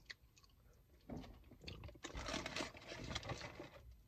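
Fried chicken being eaten: chewing and handling noises close to the microphone, starting about a second in, loudest in the middle and stopping near the end.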